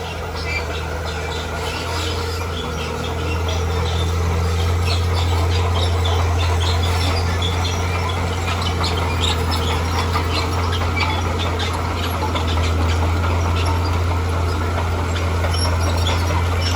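Bulldozer's diesel engine running under load with a steady low drone, growing louder about three seconds in, while its steel crawler tracks squeal and clatter in quick, irregular bursts.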